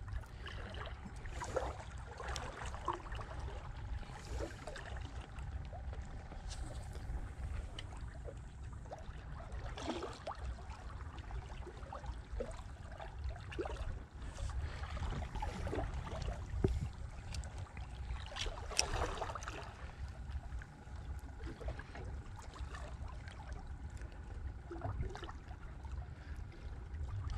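Water sloshing against a boat over a steady low rumble, with scattered small clicks and knocks of handling; a few knocks are louder about a third and two-thirds of the way through.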